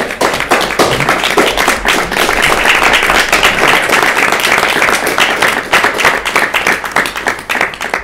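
A small group of people applauding, many hands clapping densely together, thinning out near the end.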